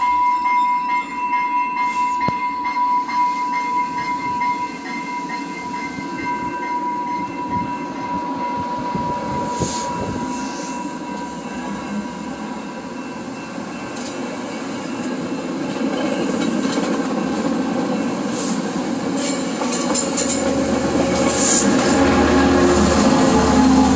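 Commuter train coaches rolling along the rails past the platform, with a steady high-pitched wheel squeal for roughly the first half. The low rumble grows louder over the last few seconds.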